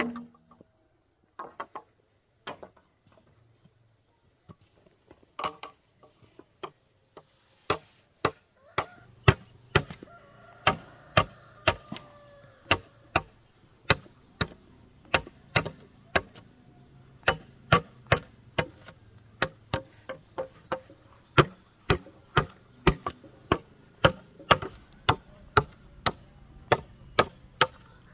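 Repeated chopping: a blade striking wood, a few scattered blows at first, then a steady rhythm of about two strokes a second from around eight seconds in.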